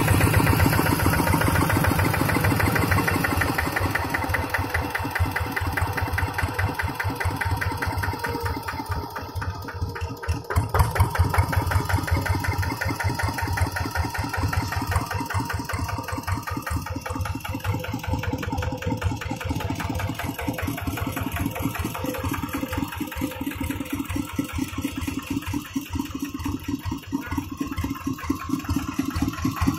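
Kubota RD85DI single-cylinder diesel engine running steadily with an even, pulsing firing beat, briefly a little louder about ten seconds in.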